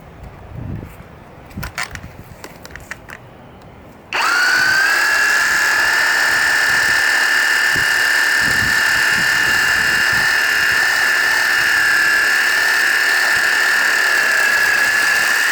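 Ozito PXC 18V brushless reciprocating saw starting about four seconds in and cutting through a bottlebrush branch two or three fingers thick with a steady high whine; it gets through the wood easily. Light handling clicks come before it starts.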